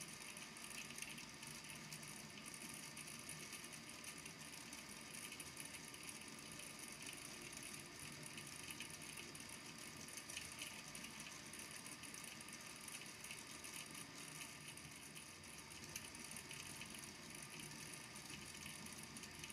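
Small beads in a volcano lamp's water tank faintly tapping and clicking without a break as they are pushed up and fall back onto the tank's base.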